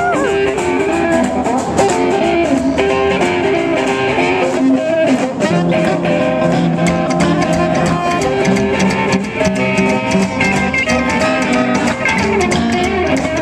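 Band music led by guitar, with a steady beat and changing chords.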